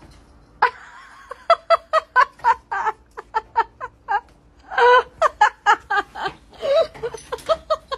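A person laughing in quick, short bursts, in two bouts of giggling.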